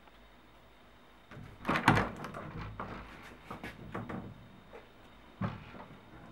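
Wooden door thudding and rattling: a loud bump about two seconds in, a run of smaller knocks and scrapes after it, and another sharp thud near the end.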